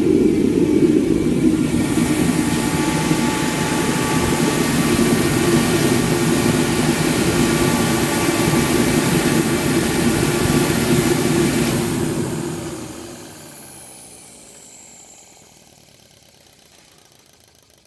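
Master forced-air heater running steadily with its burner and fan going. It is switched off about twelve seconds in: the fan winds down with a falling whine and the noise fades away.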